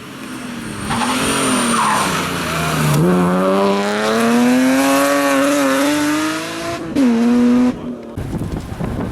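Rally car engine under hard acceleration, its pitch climbing steadily through the revs for several seconds, then briefly held high before cutting off abruptly about eight seconds in. Wind buffets the microphone afterwards.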